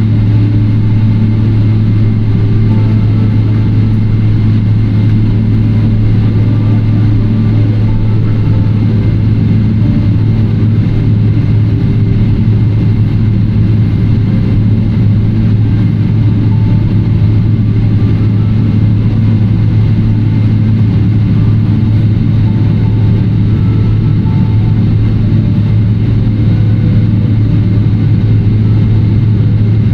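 Steady low hum inside the cabin of a Boeing 777-300ER taxiing in after landing, its GE90-115B engines at idle under the cabin air noise.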